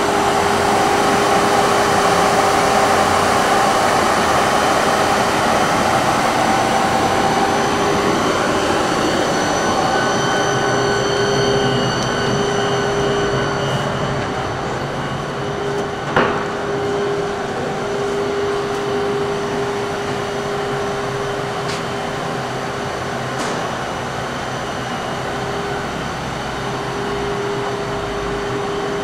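Steady whir of a running SMTW H163 cylindrical grinder, mostly the cooling fan of its 15 HP grinding-wheel motor, with a steady hum tone: a smooth, quiet-running machine. One sharp click about 16 seconds in.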